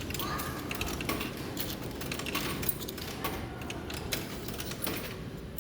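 Arcade claw crane machine being played: a steady run of irregular mechanical clicks and rattles from its controls and claw mechanism.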